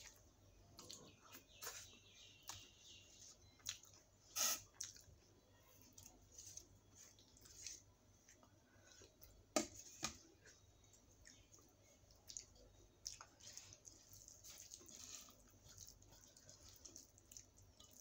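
Faint eating sounds from a person eating rice and dal by hand: soft chewing and wet mouth clicks, with fingers mixing rice on a steel plate. A couple of sharper clicks stand out about four and a half and nine and a half seconds in.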